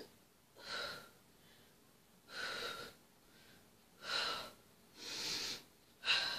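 A woman breathing hard from the effort of abdominal crunches: five heavy breaths, each under a second, about one every second or so.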